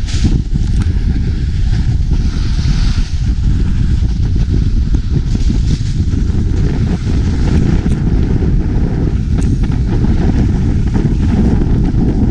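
Loud, steady wind rumble on a moving camera's microphone as it travels downhill, with a hiss of snowskates sliding over slushy snow now and then.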